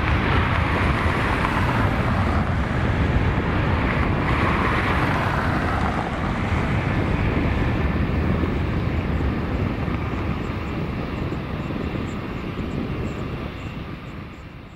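Boeing 757-200's two Rolls-Royce RB211-535E4 turbofan engines at takeoff thrust: a loud, steady jet engine noise through the takeoff roll and climb-out, fading away near the end.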